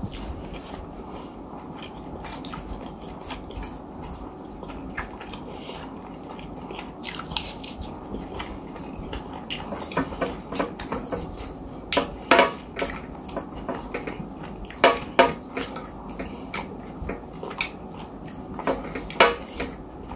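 Close-miked eating: chewing and mouth sounds, with a spoon and fork clicking and scraping on a plate. Scattered short clicks, with louder pairs about twelve, fifteen and nineteen seconds in.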